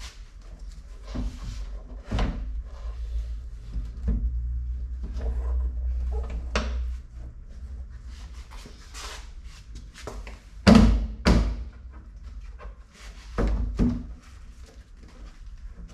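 A series of knocks and thuds from car door parts being handled and fitted, the loudest two knocks about 11 and 13 seconds in. A low steady hum runs under the knocks between about 2 and 7 seconds in.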